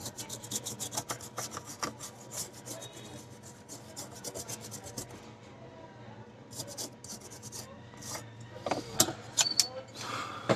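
Brush bristles scrubbing a hard-drive circuit board in quick, rapid strokes, with pauses between runs of strokes. There are a few louder knocks near the end.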